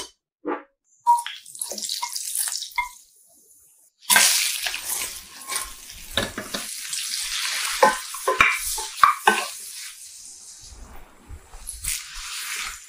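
Whole shrimp sizzling in a frying pan, with knocks and scrapes of stirring against the pan. A short sizzle comes about a second in; after a brief lull, a louder, steady sizzle starts about four seconds in and runs on under the knocks.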